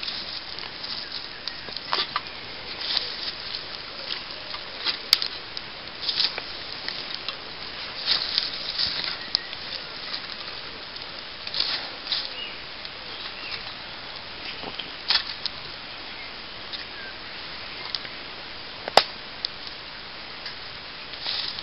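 Small twig-and-charcoal fire crackling, with irregular sharp snaps and the rustle of burning twigs and embers being moved by hand; the loudest snaps come about five seconds in and a little before the end.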